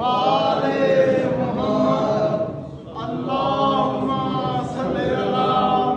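Men chanting a devotional song together, unaccompanied, in long drawn-out phrases with a brief pause about three seconds in.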